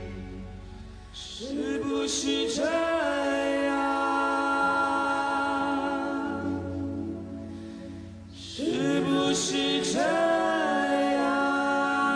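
Music with sustained, choir-like singing. Held sung notes swell in about a second in and again after about eight seconds.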